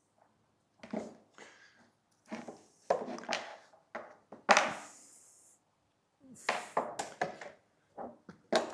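Hands working a line through a kite control bar's plastic tube: irregular rustling and scraping with small knocks and clicks, the loudest a sharp hissing scrape about halfway through.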